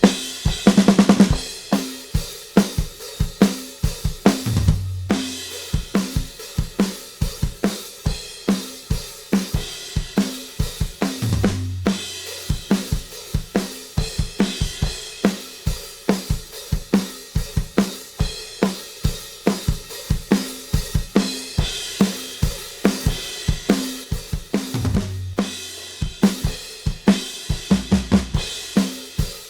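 Recorded acoustic drum kit playing a steady groove of kick, snare, hi-hat and cymbals, with a tom fill about a second in. The drums are summed to a drum bus and run through a Z&H Designs 1178 compressor/limiter.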